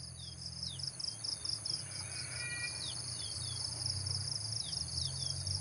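Insects chirping in a steady pulsing rhythm, about three or four pulses a second, with short falling bird chirps now and then, over a low steady rumble.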